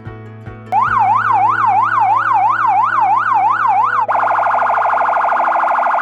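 STL IntelliSiren 100-watt electronic police siren sounding in a fast up-and-down yelp, about two sweeps a second. About four seconds in it switches to a much faster, rapid-fire phaser warble.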